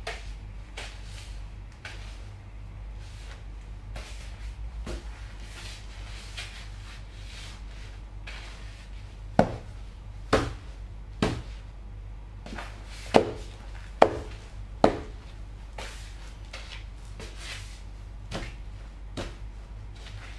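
Snakeskin cowboy boots stepping and grinding on Ritz cracker crumbs on a tile floor: repeated crunching and heel clicks, with six louder strikes in the middle stretch. A steady low hum runs underneath.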